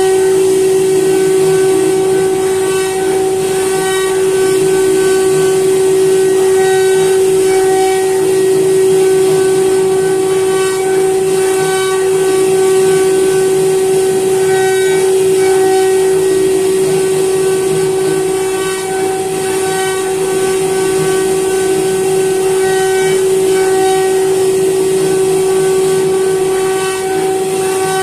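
CNC router spindle running at a steady high-pitched whine while its bit carves into a wooden board, with a hiss of cutting underneath.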